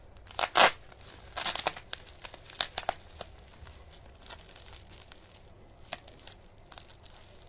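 Plastic bubble wrap crinkling in irregular short bursts as a wrapped parcel is handled, the loudest about half a second in. Later, packing tape is peeled off the wrap.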